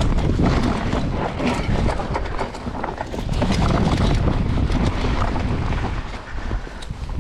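Mountain bike descending a rough dirt trail at speed: wind buffeting the camera's microphone over steady tyre rumble, with quick clicks and knocks from the bike rattling over rocks and roots.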